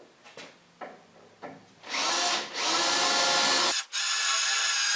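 Power drill boring a 17/64 hole into a metal pipe held in a vise, the pilot hole for a 1/4-20 tap. A few light handling clicks come first. The drill starts about two seconds in and runs steadily, stops abruptly for a moment near the end, then starts again.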